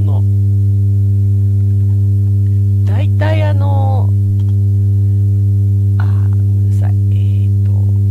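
Loud, steady low hum, the deep 'buuun' noise left on the livestream's audio, a fault in the recording that runs under the talk.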